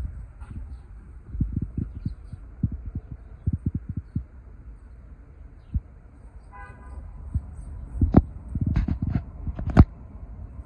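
Irregular low thumps and knocks from a handheld phone being carried and moved around while walking. A short pitched toot sounds about two-thirds of the way through, and a few sharp clicks come near the end, the last one the loudest.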